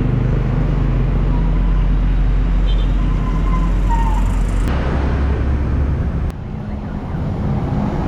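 Motor vehicle engine running with a steady low hum, over road traffic noise. The sound changes abruptly twice in the second half.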